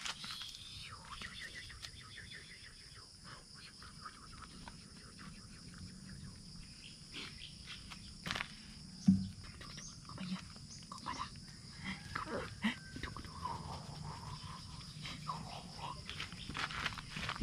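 A puppy moving about on bare dirt close to the microphone: faint scattered scuffs and taps, with a few brief small sounds in the second half, over a quiet rural background.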